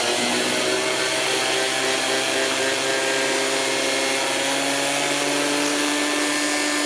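Electric gemstone grinding and polishing machine running steadily with agate stone against it: a motor hum whose pitch creeps slowly upward under a grinding hiss.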